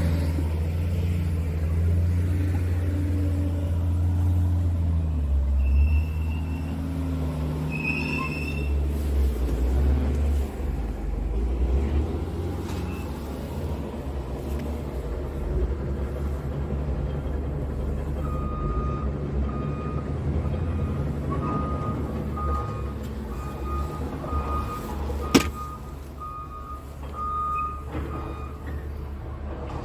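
Heavy truck diesel engine idling, heard from inside the cab as a steady low hum whose pitch shifts a few seconds in. From about two-thirds of the way through, a steady run of short, evenly spaced beeps sounds, and a single sharp click comes near the end.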